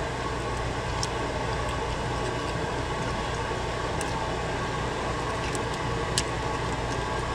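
Steady machine hum, like a shop fan, with a few faint clicks from a screwdriver tip touching the aluminum valve bore of a 200-4R transmission front pump as its spring-loaded valve is eased out.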